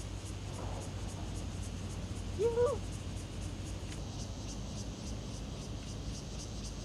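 Steady low hum and background noise, with one short hoot-like call, rising then levelling off, about two and a half seconds in.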